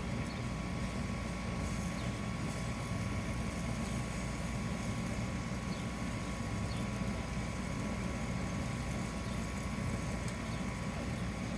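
Steady low outdoor rumble with a faint steady high tone and a few faint ticks.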